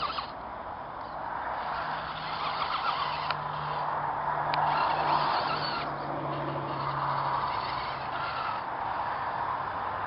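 Dual-motor RC rock crawler's electric drive motors running as it crawls over rock, heard as a steady hum that shifts in pitch a few times, with occasional sharp clicks. Front dig is engaged: the front motor is held locked by shorting while the rear motor drives.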